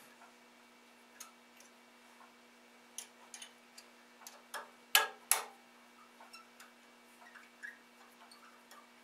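A hex key clicking against the set screws of a lathe chuck as they are loosened: scattered light metal ticks, with two louder clicks about five seconds in.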